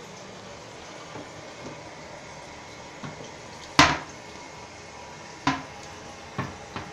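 Plastic seat and lid of a 1993 Kohler Wellworth Lite toilet shut with one sharp clack a little under four seconds in, followed by three lighter knocks as a hand handles the closed lid. A steady hiss of water refilling after the flush runs underneath.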